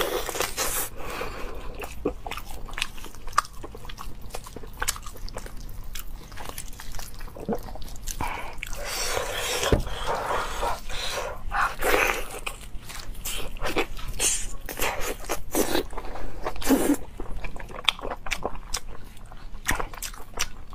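Close-up eating sounds: a person biting and tearing braised meat off a leg bone and chewing it, with many irregular wet clicks and crackles.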